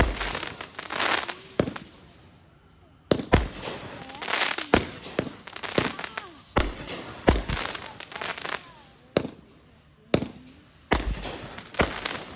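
Consumer fireworks going off: a string of sharp bangs with crackling between them, with short lulls about two seconds in and again around nine seconds.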